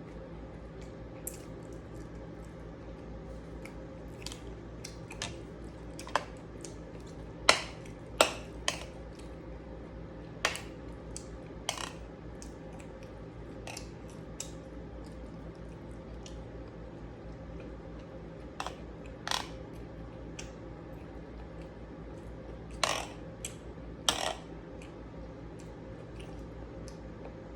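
Cutlery clinking and tapping against a plate during a meal, in scattered sharp clicks, the loudest about a quarter of the way in and again near the end, over a steady low hum.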